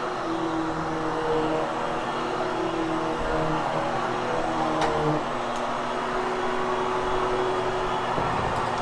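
Vacuum cleaner motor running steadily over carpet, its hum shifting in pitch about five seconds in.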